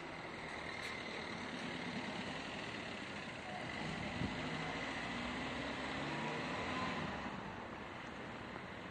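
Street traffic noise with a vehicle engine running; it swells a little around the middle and then eases off.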